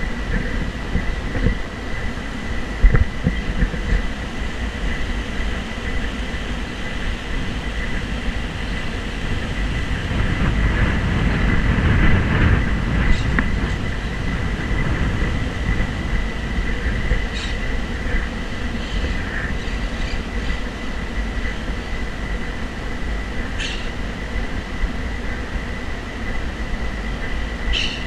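Wind rumbling on the camera's microphone as it is carried along, swelling about halfway through, over a thin steady high whine, with a few faint short ticks near the end.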